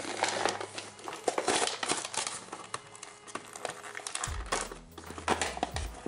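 Stiff clear plastic toy packaging crinkling and crackling as it is handled, in irregular clicks.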